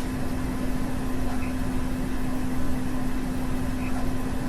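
Steady low hum and hiss of background noise, with two faint, short budgie chirps, one about a second and a half in and one near the end.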